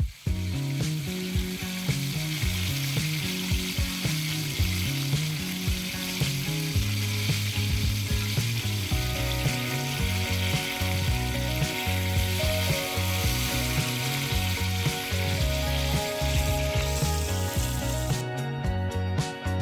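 Walleye deep-frying in hot oil, a steady sizzle that stops near the end, with background music throughout.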